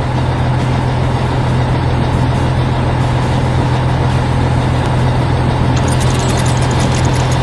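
Steady heavy-machinery engine running, a construction-vehicle sound effect with a deep, even hum. About six seconds in, a rapid mechanical clicking joins it.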